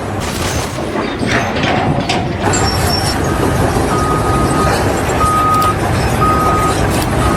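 A vehicle running with a steady rumble, and from about three and a half seconds in a reversing alarm beeping on one pitch about once a second.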